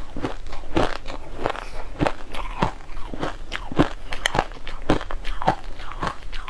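Mouthfuls of shaved ice being chewed close to the microphone: a steady run of crisp crunches, about two a second.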